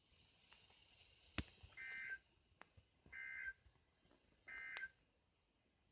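A sharp click, then three short electronic beeps about every second and a half.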